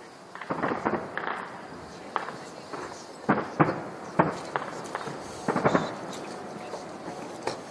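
Fireworks shells bursting: a quick run of bangs in the first second and a half, then separate bangs every second or so, some in close pairs.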